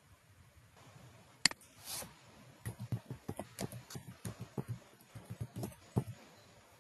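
Computer keyboard typing: a quick run of short key clicks, with one sharper click about one and a half seconds in.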